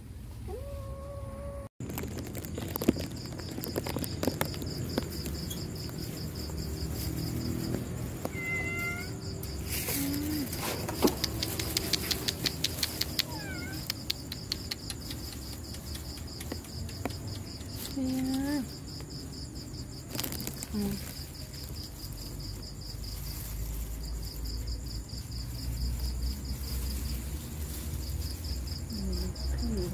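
Caged stray cat meowing several times, short separate calls spread out, against a steady high pulsing chirr; a run of rapid clicks comes about ten seconds in.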